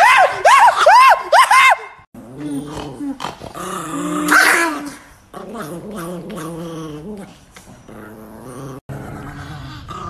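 Chihuahua barking in a fast run of sharp yaps for about two seconds, then growling in low, drawn-out stretches.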